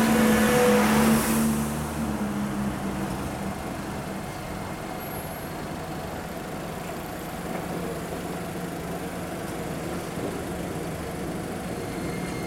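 A car passes close by at the start. After that there is a quieter, steady low hum from street traffic and the approaching Enoden train on its street-running track, swelling slightly near the end as the train draws closer.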